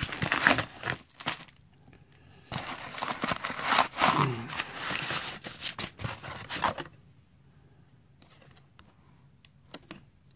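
Cardboard and packing tape tearing as a heavily taped shipping box is ripped open by hand, in two long stretches of ripping and crinkling. The last few seconds are quieter, with only a few small rustles and clicks.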